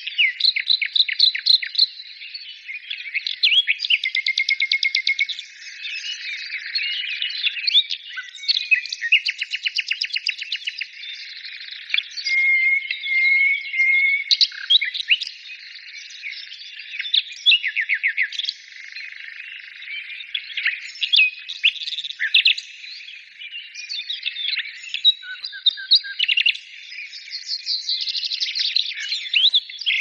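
Songbird song: a continuous, varied run of high chirps, fast trills and twittering phrases.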